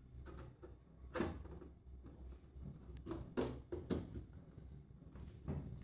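Several separate knocks and scrapes from a stiff epoxy sheet being handled and pressed into place inside a metal battery case.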